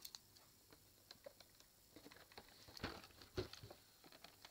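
Near silence with a few faint taps and rustles, the loudest a soft thump about three and a half seconds in.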